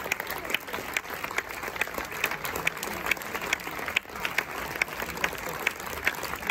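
Audience applauding steadily, many hands clapping, with single sharp claps standing out.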